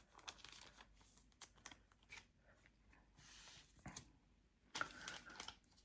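Faint handling of trading cards: soft scattered clicks and short rustles as the cards are moved and sorted.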